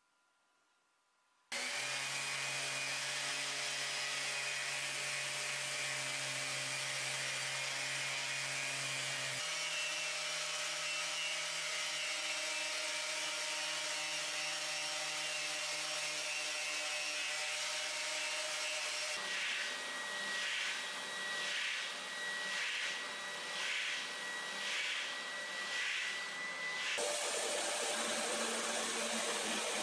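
A moment of quiet, then power tools working wood, starting suddenly: a random orbital sander running steadily on the wooden horse parts with a shop vacuum's dust extraction, its tone shifting as the work changes. Later comes an evenly pulsing stretch, then the steady run of a drill press boring into the wood.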